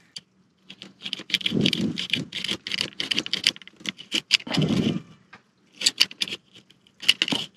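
Hand scraper pushed in short, repeated strokes along the edge of an acrylic (plexiglass) camper window, scraping off old sealant gunk that is stuck fast to the plastic. The strokes are scratchy and come roughly three or four a second, with brief pauses.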